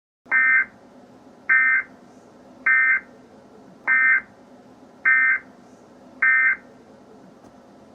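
Emergency Alert System end-of-message data bursts: six short buzzy digital chirps about a second apart, over a faint steady hum.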